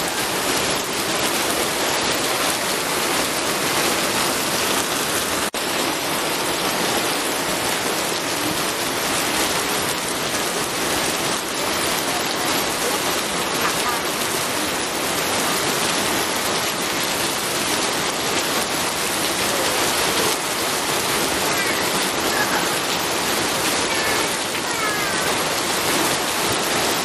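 Steady rain falling, a dense, even hiss of drops.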